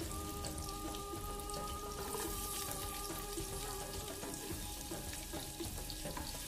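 Sliced onions sizzling gently in hot olive oil in a frying pan, a steady frying hiss, under soft background music with long held notes.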